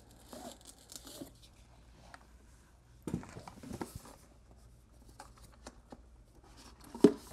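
A cardboard headphone box being handled and turned over by hand: soft rubbing and scraping of the cardboard with a few light taps, and one sharp knock near the end.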